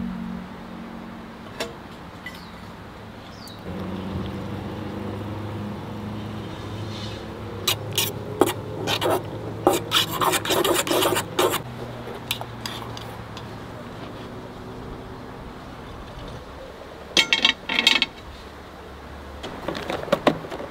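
A metal spoon stirring and scraping inside a titanium mug, a run of quick clinks and scrapes for about four seconds in the middle. Near the end comes a short cluster of clicks, like the snap latches of a plastic food container being opened.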